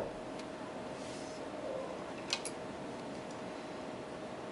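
Two small sharp clicks, about a quarter of a second apart, a little past two seconds in, over a steady background hiss with a faint steady hum.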